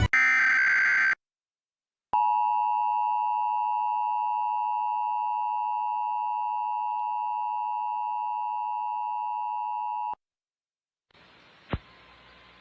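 Emergency Alert System attention signal: the steady two-tone 853 and 960 Hz alert sounding for about eight seconds, then cutting off. It is preceded by a second-long burst of shrill electronic tones that stops abruptly, and followed near the end by faint hiss and a single click.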